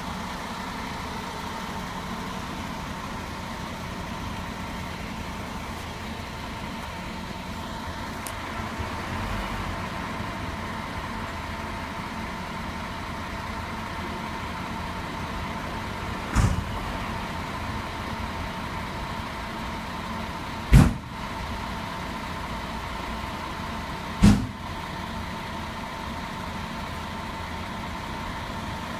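Parked coach's diesel engine idling steadily at a stop, a constant drone with a faint high whine. Three sharp thumps stand out over it, roughly halfway through and twice more a few seconds apart, the middle one the loudest.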